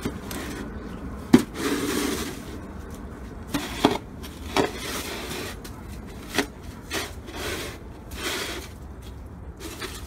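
Plastic snow shovel scraping through wet, slushy snow on pavement, with several sharp knocks of the blade striking the ground between the scraping strokes; the loudest knock comes about a second in.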